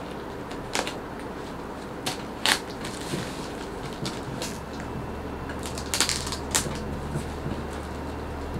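Crinkling and rustling of a parcel's plastic and paper packaging handled by gloved hands, in irregular sharp crackles, loudest around six seconds in.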